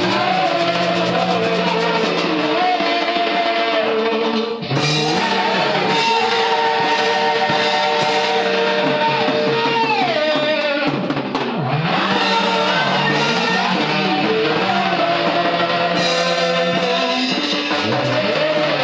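Gospel praise-and-worship band music with drum kit and guitar, playing steadily, with a brief break about 5 seconds in and another about 11 seconds in.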